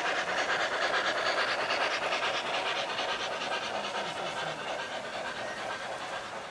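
Model N&W 611 steam locomotive's onboard sound system chuffing fast and evenly over the rolling of its wheels on the track, fading slowly as the engine moves away and its freight cars roll past.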